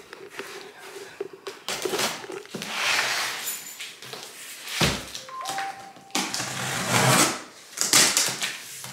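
Cardboard shipping boxes being opened by hand: several rustling, tearing bursts of cardboard and packing tape, with a thump about five seconds in.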